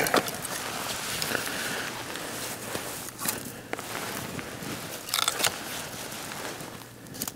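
Kindling of a newly lit campfire crackling, with sharp snaps near the start and around three and five seconds in.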